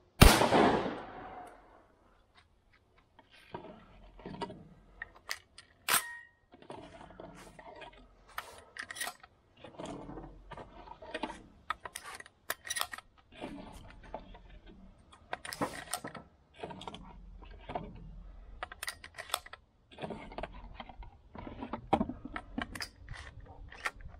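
A single shot from an MP-155 12-gauge semi-automatic shotgun, loud and echoing away over about a second and a half. After it come scattered quieter clicks and clinks, with a sharper crack about six seconds in.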